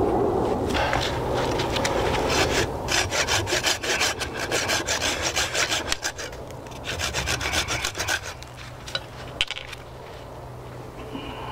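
Hand saw cutting through wood: quick, even back-and-forth strokes, a short pause about halfway through, then a second, shorter run of strokes.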